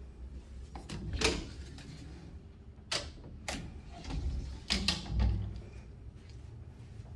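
A closet door with a round knob being opened and handled: several sharp clicks and knocks, with a few dull thumps among them.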